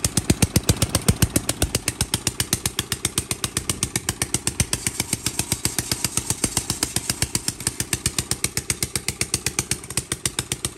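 Briggs & Stratton 3 HP single-cylinder four-stroke engine on a rotavator running at a slow idle, firing steadily about ten times a second. It runs without an exhaust silencer, which has not yet been fitted, so each exhaust pulse comes out as a sharp, loud crack.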